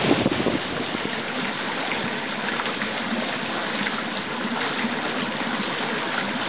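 Wind and surf for about the first half second, then a steady, water-like rushing from a small boat moving through a narrow mangrove channel.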